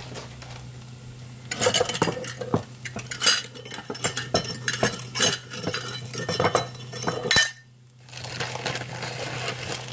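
Metal kitchen utensils and dishes clinking and clattering in quick, irregular knocks for several seconds over a steady low hum. The clatter stops about seven and a half seconds in.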